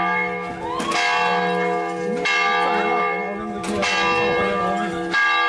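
Church bells ringing, several long-sustaining tones struck afresh every second or two, with people's voices and laughter underneath.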